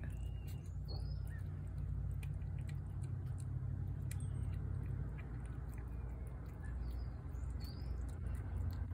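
A cat eating wet food from a plate, its chewing giving small scattered clicks, over a steady low rumble. A few short, faint bird chirps come near the start and again about seven seconds in.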